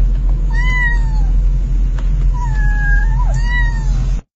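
Kittens meowing: three high, falling meows, the second and third close together, over a steady low hum. The sound cuts off suddenly near the end.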